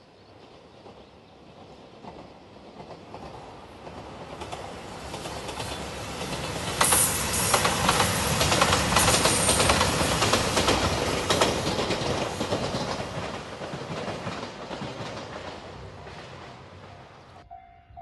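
JR Shikoku 2700 series diesel express train passing close by. It builds up over several seconds and is loudest midway, with a rapid clickety-clack of wheels over the rail joints, then fades away. It cuts off suddenly just before the end.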